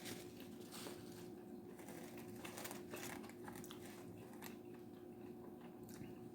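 Faint chewing and mouth sounds, with scattered small clicks, over a steady low hum.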